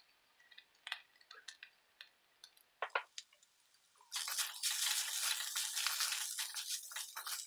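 A few light ticks as salt is tipped from a spoon into the pan, then from about four seconds in a steady dry scraping and rustling as a wooden spatula stirs grated raw banana around a metal kadai.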